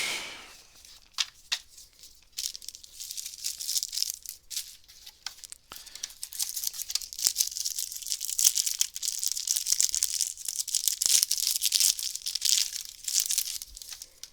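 A trading-card booster pack's wrapper being torn open and handled, with a few sharp clicks at first, then a long stretch of crackling, crinkling noise from about two seconds in.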